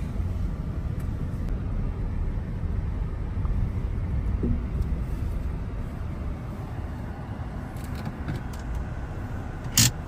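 Car driving, a steady low rumble, with one sharp click just before the end.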